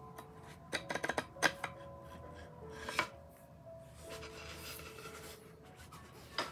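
Hands handling the small parts of a wooden guitar stand kit: a quick run of clicks and knocks about a second in, another near the three-second mark and one near the end, with rubbing between them. Soft background music with held notes plays underneath.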